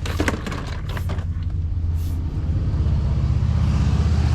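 A vehicle engine idling with a steady low pulsing rumble that grows louder toward the end. There are a few short sharp hissy clicks in the first two seconds.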